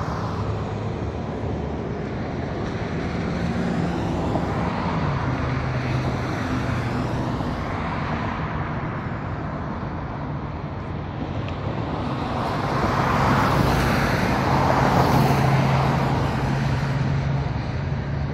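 Road traffic: cars driving past on the street, a steady wash of tyre and engine noise. One engine's hum drops in pitch about four seconds in, and a louder vehicle passes in the second half.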